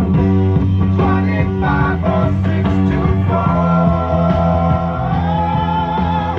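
Rock music with guitar and a held sung note that bends down near the end, playing loudly from a cassette through a Pioneer SX-535 stereo receiver and floor speakers. It comes through clean, with no static, on both channels after the receiver's pots were cleaned.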